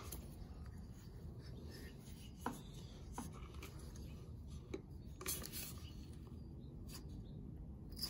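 Faint handling sounds: a few soft knocks and rubs scattered over a low steady rumble.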